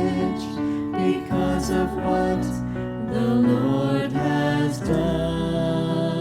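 Slow worship music with sustained chords and a melody line, no words sung.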